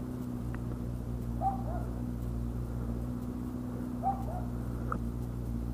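A dog barks in quick pairs, twice, about two and a half seconds apart. Under it runs the steady hum of a Kawasaki ZX-6R sport bike's inline-four engine idling.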